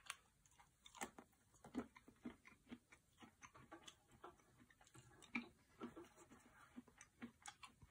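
Faint, irregular clicking and crunching of a person chewing a 40-year-old Chu Bops bubblegum record, a sharper bite at the start; the stale gum is crumbling to powder rather than chewing soft.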